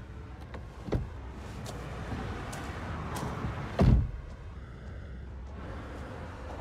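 A car door unlatched with a short knock about a second in, then slammed shut just before the four-second mark, the loudest sound, over the low steady rumble of the car's cabin.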